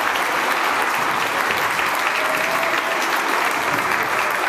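Steady applause from a crowd in the stands, many hands clapping.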